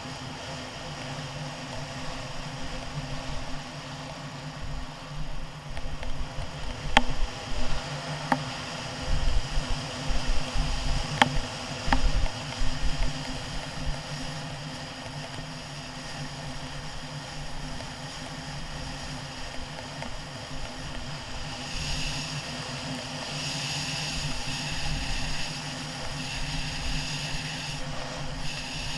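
Scooter engine running steadily while riding, with low rumbling and four sharp knocks a quarter to halfway through, and a louder hiss near the end.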